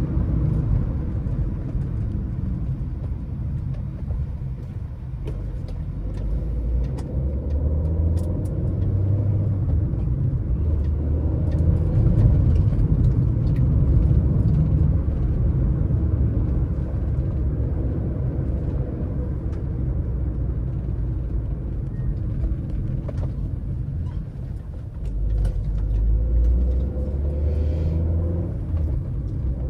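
Car driving along a road: a steady low rumble of engine and tyre noise that swells and eases slowly, with a few faint ticks.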